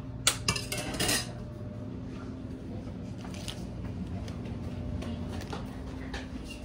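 Kitchenware clattering: several sharp clinks and knocks in the first second or so, then a few lighter clicks over a steady low hum.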